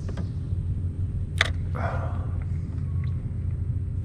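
Steady low rumble of wind buffeting the microphone out on open water, with one sharp click about a second and a half in and a short soft rush of noise just after.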